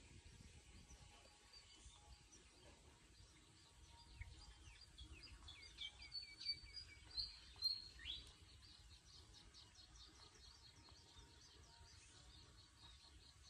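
Small birds chirping: many short, high, quickly falling notes, loudest a little past the middle, then a fast run of repeated twittering notes, over a faint low rumble of outdoor ambience.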